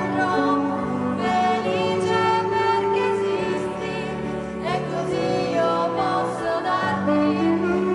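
A woman singing into a microphone with instrumental accompaniment holding long, steady chords beneath her voice.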